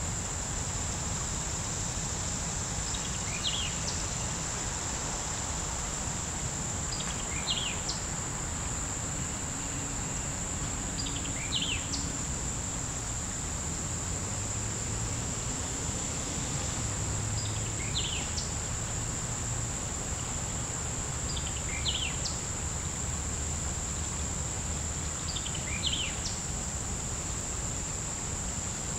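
Steady high-pitched drone of insects, with a bird repeating a short, quick song phrase about every four seconds, over a low steady rumble.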